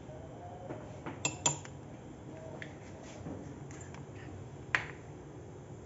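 A metal teaspoon clinks lightly against cups three times, scooping baking powder into mug-cake batter.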